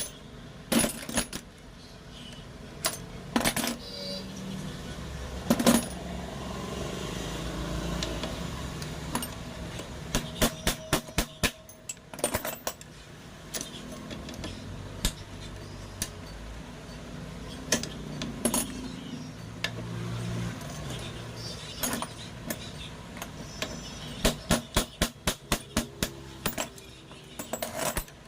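Hand tools and metal parts clinking and knocking while a motorcycle rear shock absorber and its mounting bolts are worked on, with scattered sharp knocks and two runs of quick, evenly spaced clicks, about four or five a second, near the middle and towards the end.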